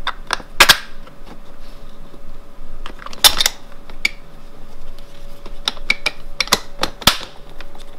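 Allen key and screws clicking and knocking against the plastic-and-aluminium frame of a ski and snowboard rack adapter as the long screws are fitted and turned. The clicks come at irregular intervals, with two louder knocks about a second and three seconds in.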